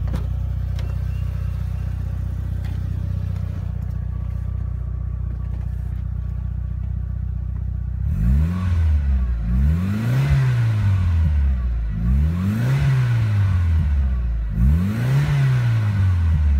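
Mitsubishi Lancer Evolution VIII's turbocharged 2.0-litre four-cylinder engine idling steadily, then revved in a series of throttle blips from about eight seconds in, the pitch rising and falling with each one. Heard from the driver's seat.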